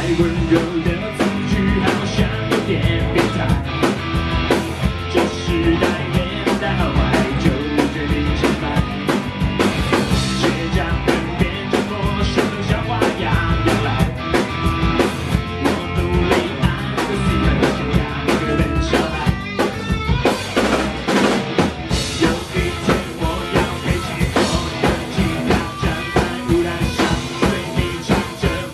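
Live rock band playing an instrumental passage, with a drum kit keeping a steady beat under bass and amplified instruments; the cymbals thin out briefly about two-thirds of the way through.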